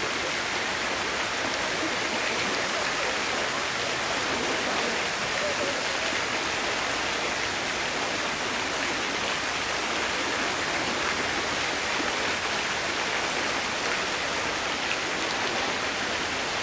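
Steady rush of running water, like a small waterfall or stream, unchanging throughout.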